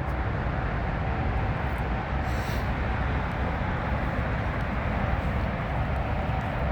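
Steady roar of distant highway traffic, a constant low rumble with no distinct events.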